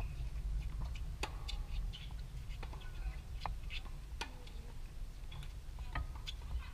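Tennis ball struck by racquets in a rally: several sharp pops, irregularly about a second apart.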